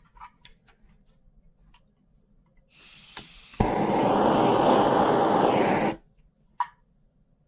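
A few light ticks, then a butane torch is lit with a click and its flame hisses loudly and steadily for about two and a half seconds before cutting off abruptly.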